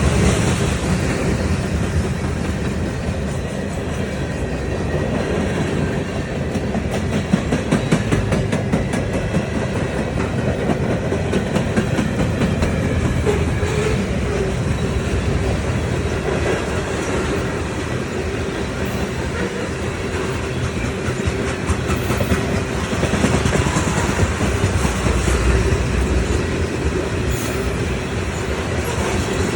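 Train rolling past with a steady rumble, its wheels clicking rapidly over the rail joints.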